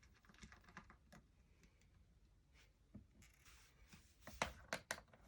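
Faint, scattered small clicks and taps of a screwdriver and hands working the screws on the plastic underside of a Dell Latitude D630 laptop, with a few sharper clicks between about four and five seconds in.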